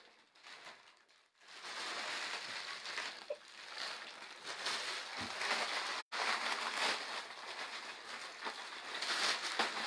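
Plastic packaging rustling and crinkling as a wrapped handbag is handled. It starts about a second and a half in, after a brief near silence.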